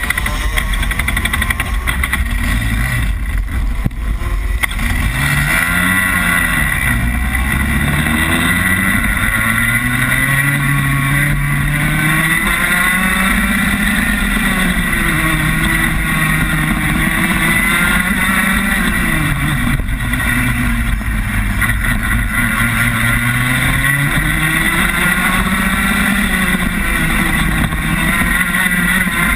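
Rotax Max kart's 125cc single-cylinder two-stroke engine heard on board at racing speed, its pitch climbing on the straights and dropping back into the corners, over and over.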